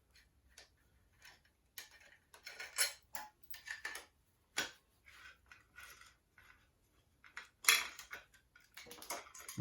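Irregular metallic clicks, clinks and short scrapes of hand tools and engine parts being handled on a motorcycle engine, with sharper knocks about four and a half and eight seconds in.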